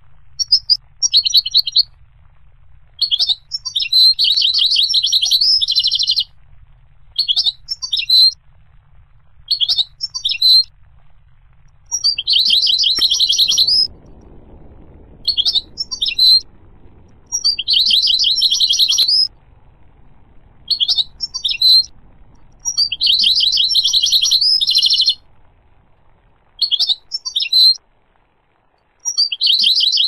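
European goldfinch singing: short twittering chirps alternating with dense, buzzy trilled phrases of about two seconds. Five such phrases come at a steady spacing of about five to six seconds.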